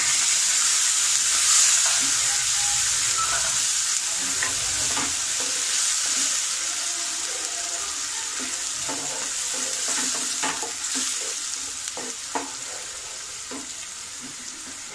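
Onion and ginger-garlic paste sizzling as it fries in hot oil and ghee, stirred with a wooden spatula. The sizzle is loudest at the start and slowly dies down. Short scrapes of the spatula on the nonstick pan come in the second half.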